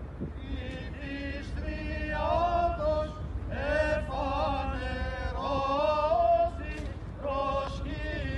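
A group of voices chanting an Orthodox hymn together in long, wavering held notes.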